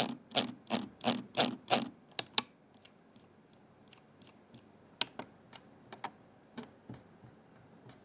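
Keychron M6 mouse clicking under the hand: about six firm clicks a third of a second apart in the first two seconds, then softer, scattered clicks.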